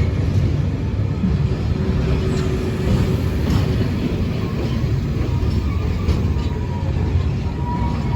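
Class 66-hauled engineers' freight train rolling slowly past over the level crossing: a steady low rumble of the wagons and diesel locomotive. A faint high squeal comes in near the end as the train brakes to a stop.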